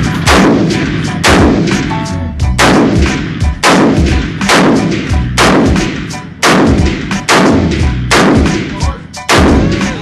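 Semi-automatic 7.62 NATO battle rifle firing a steady string of about ten single shots, roughly one a second, each with a short echo.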